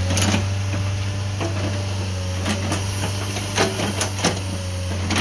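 Komatsu PC40 mini excavator's diesel engine running steadily while the boom and bucket are raised, with a few sharp clanks from the machine.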